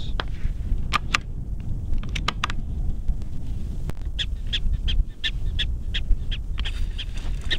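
Prairie dog alarm calls: short, high chirps, a few at first, then a steady run of about three a second from about four seconds in, over a low wind rumble on the microphone.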